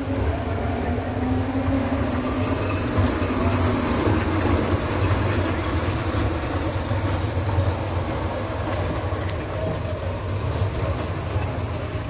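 Waltz fairground ride getting under way: a steady mechanical rumble of its drive and of the cars rolling over the turning platform, with a low hum throughout and a faint steady whine in the first few seconds.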